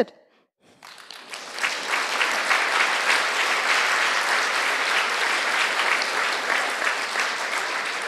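Audience applauding. The clapping starts just under a second in, builds quickly, holds steady and eases off slightly near the end.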